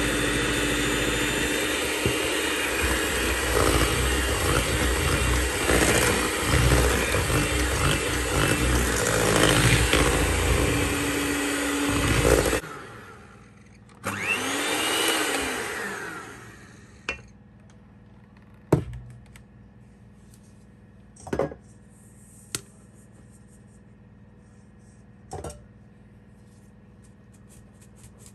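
Electric hand mixer running steadily as its beaters whip cake batter, then switched off suddenly a little under halfway through. Afterwards there is a short swell of noise and a few scattered sharp knocks and taps.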